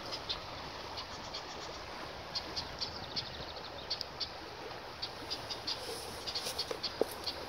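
Many small birds chirping, with short high calls scattered irregularly over a steady outdoor hiss. A single sharp knock comes near the end.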